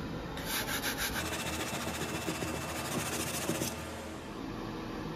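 Silicon carbide sandpaper rubbed by hand over a plastic car bumper: rapid scratchy strokes for about three seconds, stopping near the end, sanding the surface to prepare it for plastic welding.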